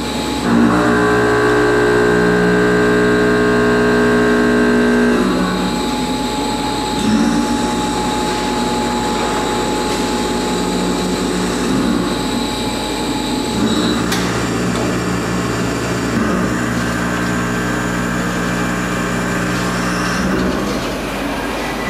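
Face mill roughing a 1.2311 tool-steel block on an FPT Dino vertical CNC machining center's TVS spindle head: a 63 mm four-insert cutter at 900 rpm takes heavy 1.2 mm passes. It makes a loud, steady cutting drone with humming tones that shift abruptly several times.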